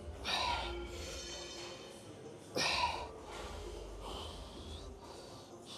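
Two forceful, noisy breaths from a man bench-pressing a barbell, each about half a second long and a little over two seconds apart, over background music with a steady bass.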